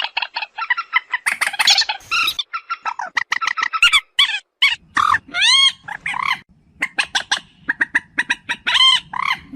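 Moorhen calling: fast runs of short clucking notes, with longer arched calls that rise and fall about five seconds in and again near the end.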